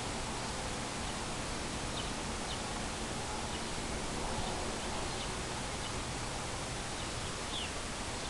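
Steady outdoor background hiss with a few faint, short bird chirps scattered through it.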